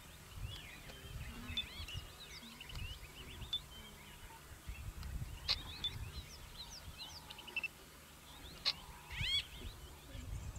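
Faint chorus of small birds: many short, high chirps and calls that glide up and down, overlapping throughout, with a few brief louder calls around the middle and near the end. Occasional low bumps run underneath.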